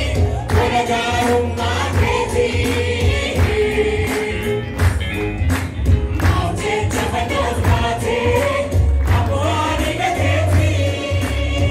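A choir singing gospel music over a steady percussion beat with heavy bass, amplified through loudspeakers.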